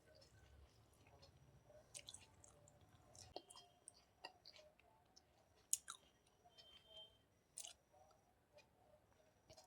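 Faint, close-miked chewing of food, with scattered soft clicks and wet mouth smacks; one sharper click a little past halfway is the loudest.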